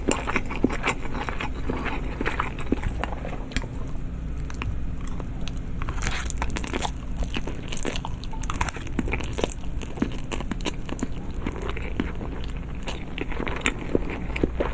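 Chewing Korean noodles: a steady run of irregular mouth clicks and smacks.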